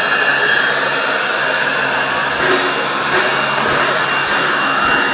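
Steam locomotive NM25, a 1925 narrow-gauge steam locomotive, hissing loudly and steadily as steam escapes from beneath it beside the wheels.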